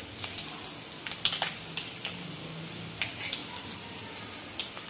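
Mustard and cumin seeds and dried red chillies frying in hot oil in a kadai: a faint steady sizzle with a few sharp crackles and clicks as they are stirred with a slotted metal spatula.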